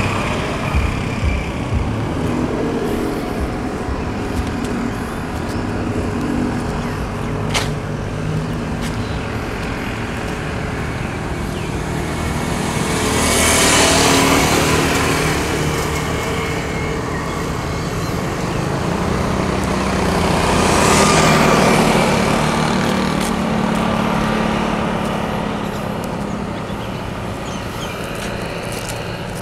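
Road traffic with a steady low engine rumble. Two vehicles pass close by, the first about halfway through and the second about two-thirds through, each swelling up and then fading.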